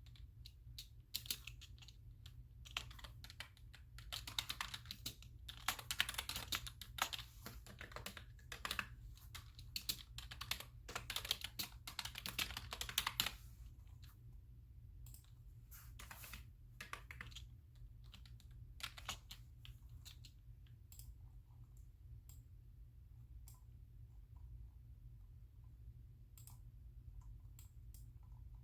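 Typing on a computer keyboard in quick runs of keystrokes for about the first half, then only scattered single clicks, over a steady low hum.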